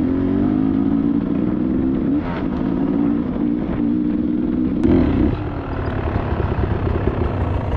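Beta 300 two-stroke dirt bike engine pulling under throttle, its pitch climbing slowly with a brief dip about two seconds in. About five seconds in it eases off to a lower, uneven running.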